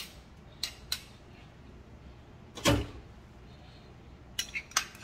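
Light clicks and taps of kitchen utensils and a container being handled, with one louder knock a little past halfway through.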